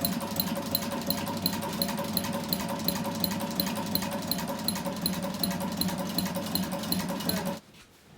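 Sewing machine running steadily with a motor hum and a regular stitching tick about four times a second, then stopping suddenly near the end.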